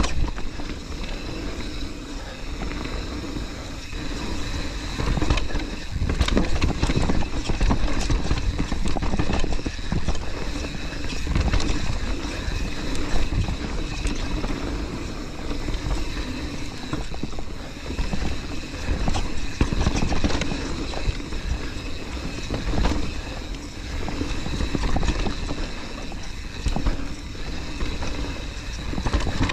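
Mountain bike rolling down a rough, rocky and rooty trail: a continuous clatter of the bike and tyres over the ground, with rumbles of wind on the microphone every few seconds.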